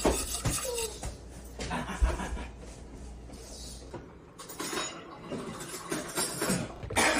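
Metal wire whisk stirring a thick sauce in a stainless-steel pot, scraping and clinking against the pot, then a few light clinks of a plate and cutlery.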